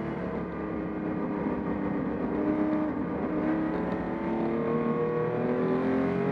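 A 1967 Porsche 911S race car's air-cooled flat-six engine heard from inside the cabin. Its note eases down slightly over the first few seconds, then climbs steadily as the car accelerates.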